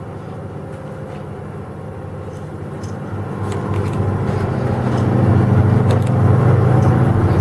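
A motor vehicle's engine running, growing louder over a couple of seconds about halfway through and then holding steady.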